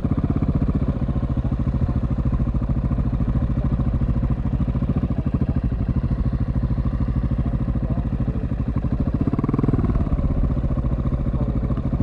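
KTM 690 SMC R single-cylinder engine breathing through a Leovince SBK aftermarket exhaust, running steadily on the move with a quick pulsing beat. Near the end there is a brief change in throttle.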